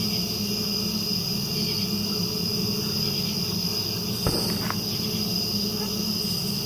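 A steady night chorus of crickets chirping. About four seconds in, a single distant gunshot sounds once, with a faint echo just after it.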